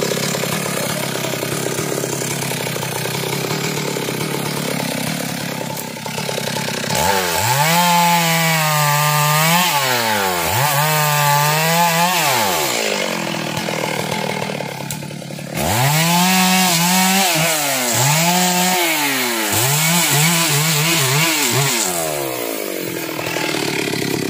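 Stihl two-stroke chainsaw cutting through a felled tree trunk. It runs steadily for the first several seconds, then revs up to full throttle about seven times, each burst held briefly in the cut before falling back. The first bursts are longer and the last ones quicker, and the saw is back to a lower steady run near the end.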